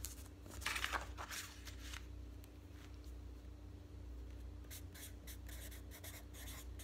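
Felt-tip marker writing on notebook paper: a few scratchy strokes about a second in, then a run of short, quick strokes in the later part, over a faint steady hum.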